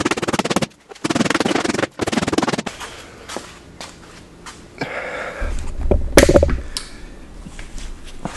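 Hammer bashing on a Volvo's sheet-metal firewall and transmission tunnel to make clearance for an engine swap: three fast bursts of rapid metallic blows in the first few seconds, then scattered knocks with a louder clatter about six seconds in.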